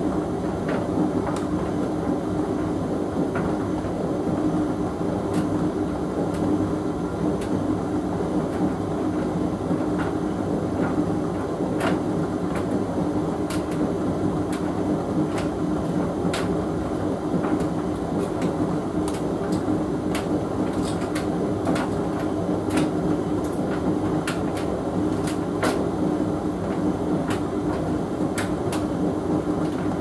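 Hoover VHV680C vented tumble dryer running: a steady motor and fan hum with the drum turning, and scattered light clicks and taps from the load of mixed fabrics tumbling inside.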